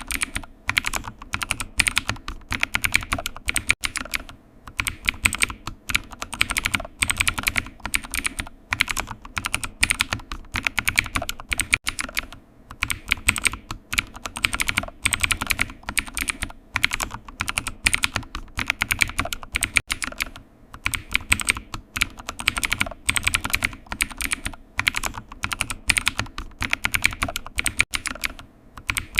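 Computer keyboard typing: rapid key clicks in continuous runs, broken by short pauses every few seconds.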